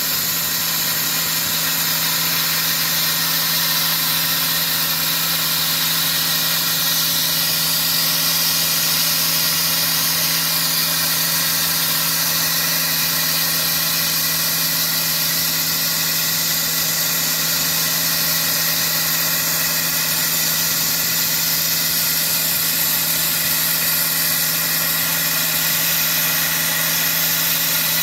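Sandblasting log siding: a steady, dense hiss of air and abrasive from the blast nozzle over the constant hum of an engine running at a steady speed.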